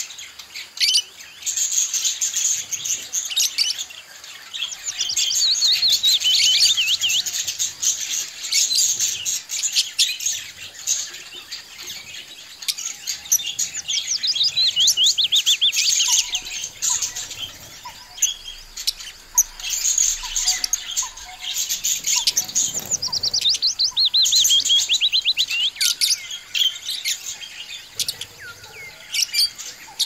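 A flock of budgerigars chattering and warbling: a dense stream of quick chirps and fast rising-and-falling trills, broken by brief lulls.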